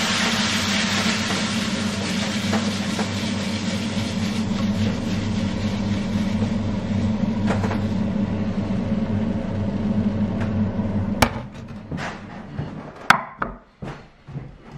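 Liver pieces sizzling in a stainless steel frying pan, with a steady low hum under the sizzle. About eleven seconds in the sizzle stops with a sharp click, followed by a few knocks and clunks of the pan being set down on a wooden chopping board.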